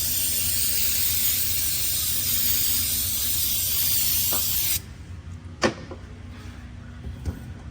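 A pressurised spray hissing steadily while cleaning a transmission valve body, cutting off suddenly a little under five seconds in; a single sharp click follows about a second later.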